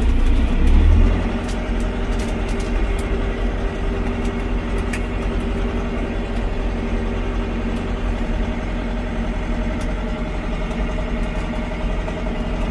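John Deere 6420 tractor's diesel engine running under way in fourth gear. It is louder for about the first second, then settles into a steady drone, with a few light clicks.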